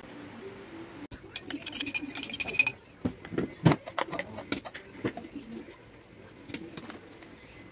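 Kitchen handling sounds: a run of small clattering clicks, then a few sharp knocks as chopped vegetables are tipped from a plastic bowl into an enamel pot, followed by scattered light taps.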